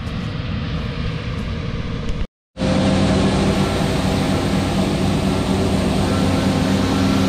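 An even rushing noise while moving across the field. A short silent gap at an edit cut follows about two seconds in. Then a John Deere S670 combine's engine runs steadily close by, a loud, even machine hum with several held tones.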